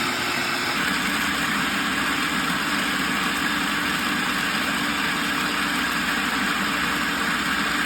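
Food processor motor running steadily with a constant whirring hum, blending chopped strawberries with vinegar, maple syrup, lime juice and mint into a purée.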